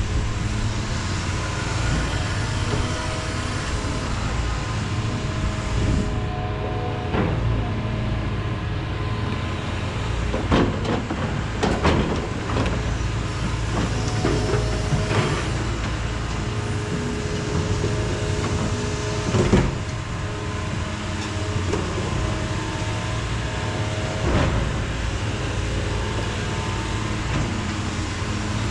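Heavy diesel excavator engine running steadily under load, with scattered metal clanks and knocks from the machine's working gear.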